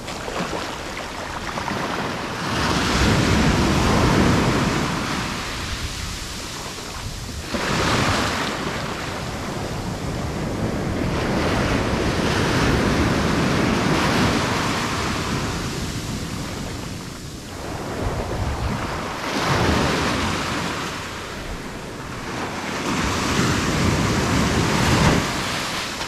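Atlantic surf: small waves breaking and washing up over wet sand at the water's edge. The rush swells and fades every five seconds or so.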